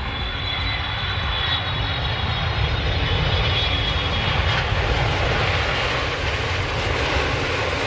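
Twin-engine jet airliner on approach with its landing gear down, engines roaring and getting louder as it comes closer. A high fan whine rides on top and drops slightly in pitch.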